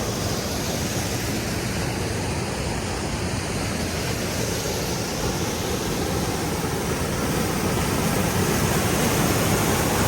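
Steady rush of river water pouring over rocks, an even wash of noise that grows slightly louder near the end.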